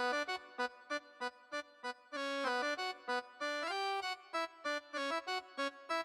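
Background music on an electric-piano-like keyboard: short repeated notes, about three a second, with a held chord through the middle.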